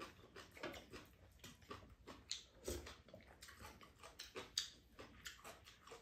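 Faint table-eating sounds: light, irregular clicks of wooden spoons and chopsticks against ceramic bowls and a pan, with chewing.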